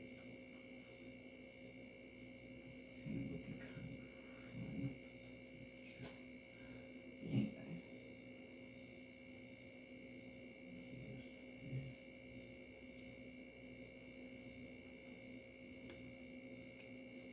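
A faint steady electrical hum made of several held tones, with a few brief soft handling sounds a couple of seconds apart, the clearest about halfway through.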